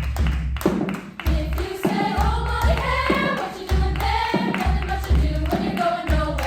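High-school choir singing a rhythmic arrangement in many voices, over a steady low thumping beat and sharp hand claps.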